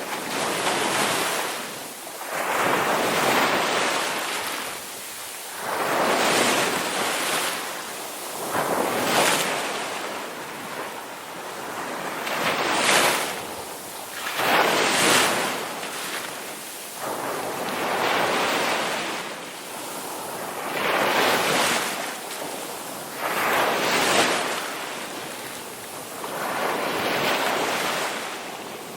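Ocean waves crashing on a shore, one surge of surf after another every few seconds, each rising to a rush and washing back down.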